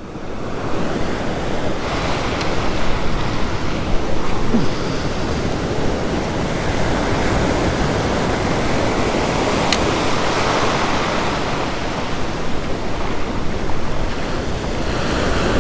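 Ocean surf washing onto a beach, a steady rush of breaking waves, with wind buffeting the microphone.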